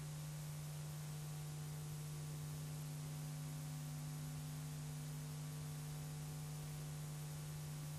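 Steady low electrical hum over a faint even hiss, with nothing else sounding: the background noise of an old videotape recording.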